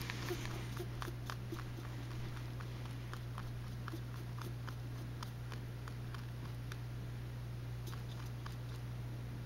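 Faint, irregular small clicks and rustles from a pet rabbit in her carrier. They come two or three a second at first and then thin out, over a steady low hum.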